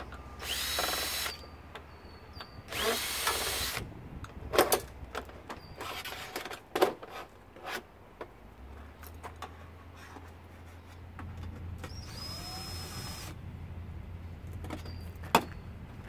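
Drill backing out Torx screws from a stainless steel dishwasher in three short bursts, each rising in pitch as the motor spins up. Metal clicks and knocks come between the bursts.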